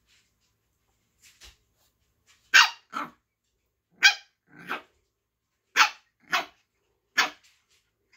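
Puppy barking in short, sharp barks: two faint ones a little over a second in, then seven loud ones, mostly in pairs about half a second apart.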